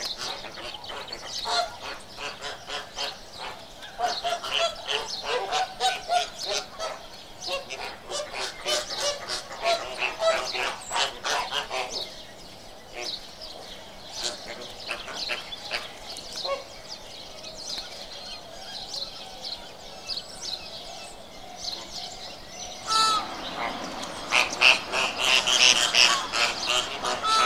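A flock of flamingos honking. The calls come thick and fast for about the first twelve seconds, thin out in the middle, and pick up again a few seconds before the end.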